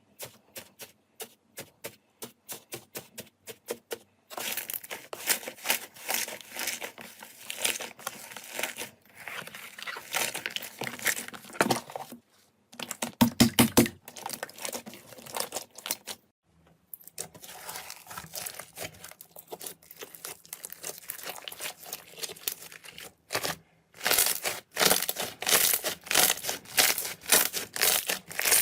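Slime being pressed, stretched and squeezed by hand, with sticky crackling, popping and clicking. It starts as a run of sharp clicks, about four or five a second, then turns to dense crackling that stops briefly a few times.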